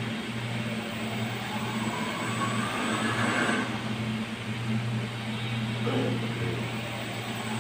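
Electric water-pump equipment running with a steady low hum and a motor-like whir.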